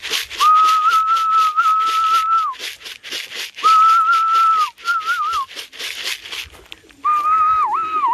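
A person whistling to call racing pigeons home to the loft: a long steady whistle, a shorter one, a brief warbling one, then a wavering whistle near the end. Under the whistles runs a fast, even rattle, several strokes a second, which stops about six and a half seconds in.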